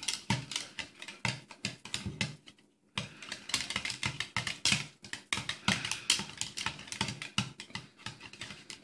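Wire whisk clattering quickly and unevenly against the sides of a plastic mixing bowl as a child whisks pudding, a rapid run of small clicks with a brief pause a little before three seconds in.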